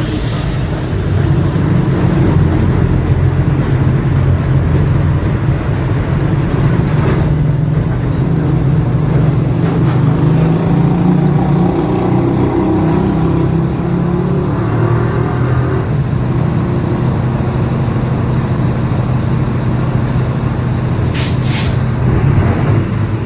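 Diesel engine of a Mercedes-Benz OF-1721 BlueTec 5 bus running, its pitch shifting in the middle as the engine works. Short hisses of air cut in about a third of the way in and twice near the end.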